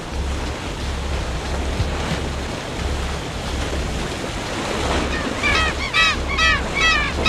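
Steady rushing of wind and water around a ship moving through sea ice. About five seconds in, a seabird starts a rapid run of repeated calls, about four a second.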